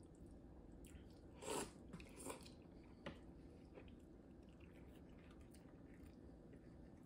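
Faint eating sounds: a man chewing and sipping fish broth from a spoon. A few short, louder mouth noises come about one and a half, two and a half and three seconds in.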